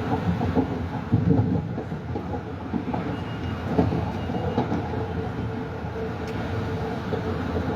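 Metro-North M3A electric multiple-unit train running, heard from inside the passenger car: a steady rumble with a constant hum, and irregular clunks and clacks from the wheels over the track, mostly in the first few seconds.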